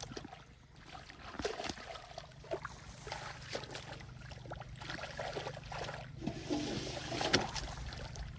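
Shallow muddy water sloshing and splashing in small irregular bursts as hands search through it, with a sharp click about seven and a half seconds in, over a steady low rumble.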